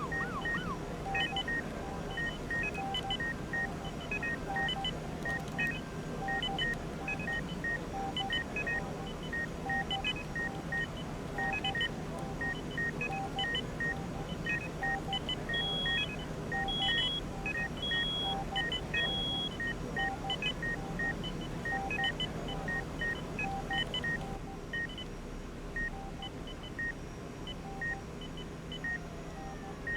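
Electronic beeping of hospital medical equipment: several monitors at different pitches beep in overlapping steady rhythms over a low hum. Midway comes a run of four higher beeps about a second apart, and a siren-like tone starts to rise at the very end.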